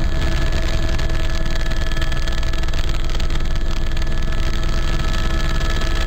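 Helicopter in flight heard from inside the cabin: steady engine and rotor noise with a fast low pulsing and a constant whine over it.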